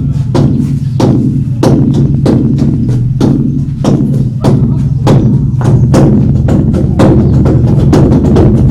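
A large drum beaten over and over, about two strokes a second, each stroke sharp, with a deep boom that rings on steadily beneath the strokes.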